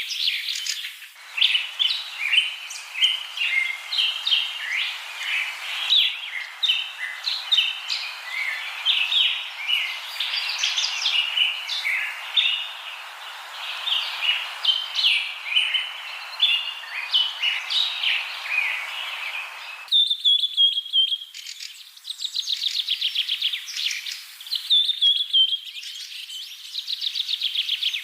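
Mynas calling: a busy, varied chatter of short whistled and squawky notes, changing about two-thirds of the way through to faster rattling trills in short runs.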